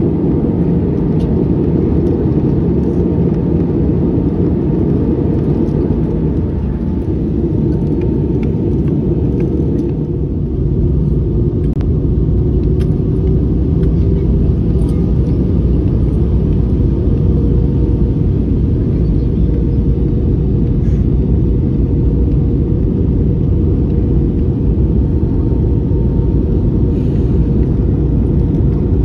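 Steady low rumble of engine and airflow noise inside the cabin of an Airbus A320.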